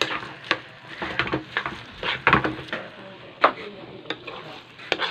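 Metal spoon knocking and scraping against a metal pan while stirring sticky rice for biko, in irregular clatters. The loudest knocks come a little past the middle.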